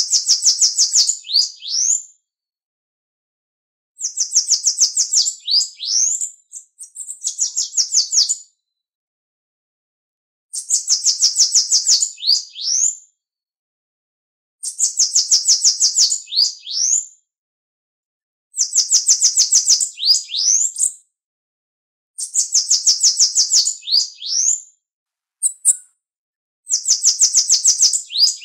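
Bananaquit (Coereba flaveola) singing the same song over and over, about seven times. Each song is a rapid run of high notes lasting about two seconds and ending in a few quick rising notes, with silent gaps of about two seconds between songs.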